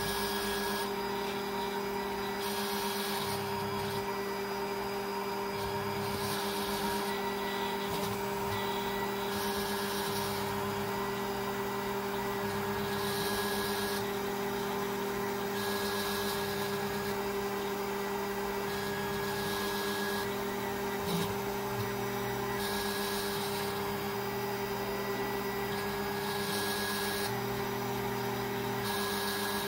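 Snapmaker's stepper motors driving the laser module while it engraves a rubber sheet: a steady machine hum whose sound changes every two to four seconds as the moves change.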